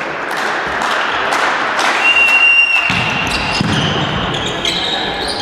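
Indoor volleyball play: the ball is struck and bounces on the hall floor in sharp knocks, and players' shoes squeak. A short steady whistle blast sounds about two seconds in.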